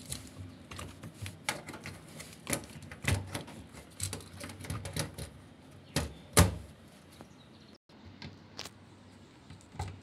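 Plastic clicking and knocking of an LG washing machine door lock switch being worked into place inside the door opening: an uneven run of sharp clicks for about seven seconds, the loudest knock about six seconds in, then only a few faint clicks.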